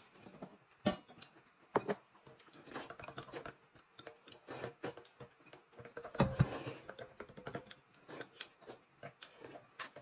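Quiet eating and tableware sounds: many small clicks and taps of chopsticks and a spoon against a bowl and a glass, noodles slurped, and liquid poured into a glass.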